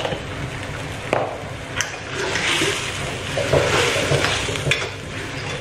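Metal spatula stirring a sauce in a wok, sloshing and scraping through the liquid, with a few sharp clinks of the spatula against the pan.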